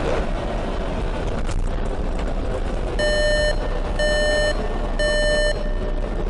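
Three electronic beeps, each about half a second long and one second apart, starting about halfway in, over a steady background noise with a low hum.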